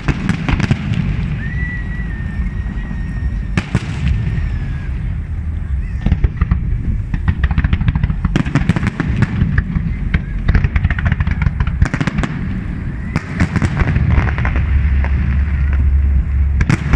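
Aerial firework shells bursting: repeated sharp bangs and clusters of rapid crackling over a deep continuous rumble. A thin high whistle holds for about three seconds near the start.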